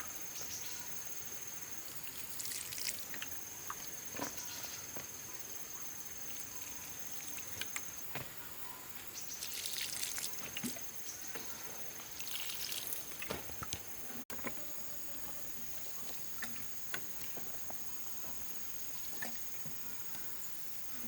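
Steady high-pitched insect drone of a cricket or cicada kind, with scattered clicks, knocks and short rustling or splashing handling noises. The drone breaks off briefly about two-thirds of the way through and then resumes.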